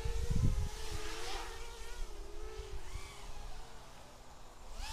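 FPV miniquad racing drone's electric motors and propellers buzzing at a distance, the pitch wavering with throttle and fading out near the end as the quad moves away.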